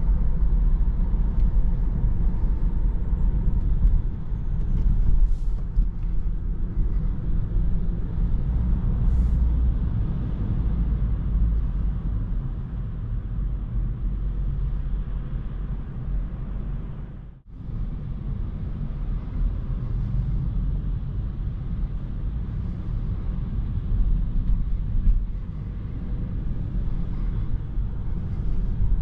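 Steady low road and tyre rumble of a Tesla Model 3 electric car on the move, heard inside the cabin. The sound drops out sharply for a moment about seventeen seconds in.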